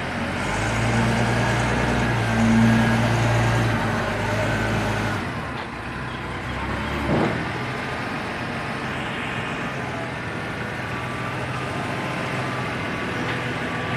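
TCM forklift engine running as the forklift moves a load into the workshop. The hum is louder for the first few seconds, then drops off to a steady quieter running about 5 s in, with a short knock about 7 s in.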